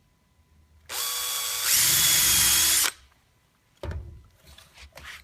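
Power drill running a 1/4-inch countersink bit into a small piece of wood for about two seconds, getting louder partway through, then stopping. A knock follows about a second later, with some light handling clicks.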